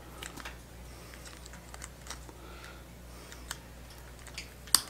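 Faint, scattered clicks and taps of fingertips pressing and smoothing a vinyl decal onto a plastic helmet shell, with one sharper click near the end.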